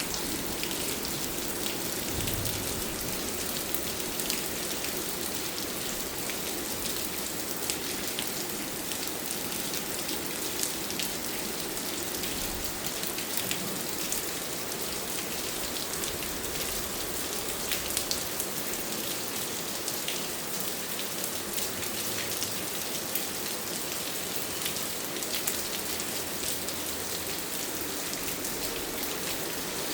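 Steady rain falling, a continuous hiss peppered with many small drop ticks, holding an even level throughout.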